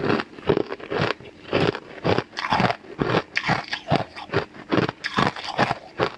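Close-up crunching of frozen purple ice cubes being chewed, a crisp crunch about twice a second in a steady rhythm.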